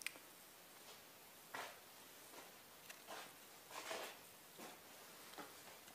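Faint, scattered light knocks and rustles, about half a dozen short ones spread over a few seconds, over a quiet room.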